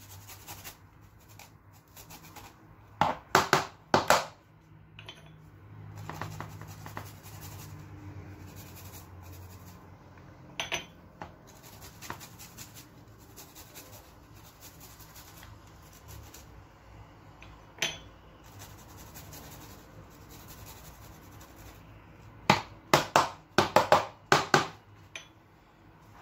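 Garlic cloves being grated on a metal hand grater: low rasping scrapes, broken by clusters of sharp knocks and scrapes a few seconds in and again near the end.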